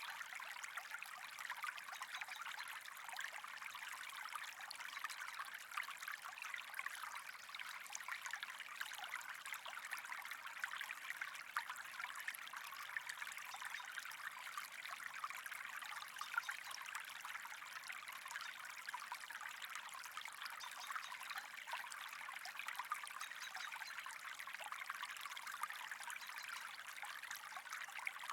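Water trickling and flowing steadily, a continuous fine splashing hiss full of tiny crackles.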